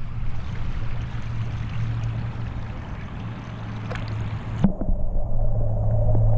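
Steady rushing water and air noise on a waterproof GoPro's microphone held at a pond's surface; about four and a half seconds in, a thump and the sound turns dull and muffled as the camera goes under the water.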